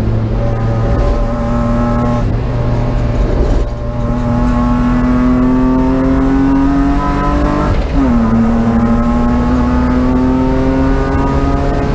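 BMW race car engine pulling hard under throttle, its pitch climbing steadily. The engine note cuts out briefly about three seconds in. Near eight seconds in there is a quick upshift, with a sudden drop in pitch before it climbs again.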